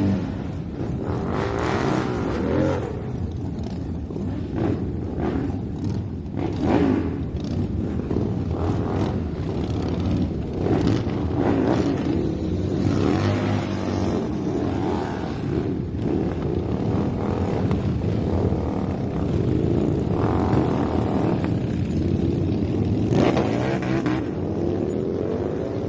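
Motorcycle engines running one after another, with several passes that rise and fall in pitch and loudness as each goes by.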